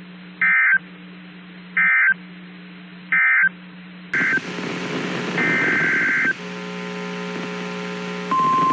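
Emergency Alert System data bursts: three short end-of-message bursts of warbling beeps about a second apart over a low hum. After a sudden change in the audio come another short burst, a longer header burst, and a few seconds of several steady tones together. Near the end a single steady tone about 1 kHz starts, the weather-radio warning alert tone.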